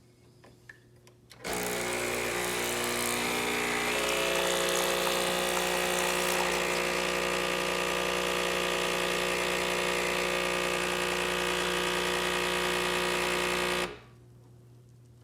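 Breville espresso machine steaming through its steam wand during a descaling cycle: the pump's steady buzz under hissing steam. It starts about a second and a half in and cuts off sharply shortly before the end.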